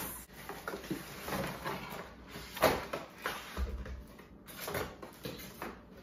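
Cardboard box and packaging being handled as a coffee machine is lifted out: irregular rustling and scraping, a few sharp knocks, and a short low thump about three and a half seconds in.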